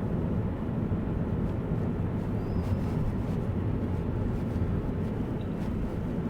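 Steady road and engine rumble heard from inside a Ford Focus cabin while it is being driven.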